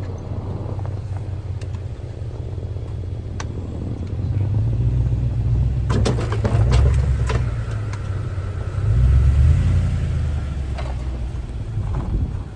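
Snowplow truck working close by: a deep engine rumble that swells twice as it pushes snow, with a cluster of clanks and knocks about six seconds in.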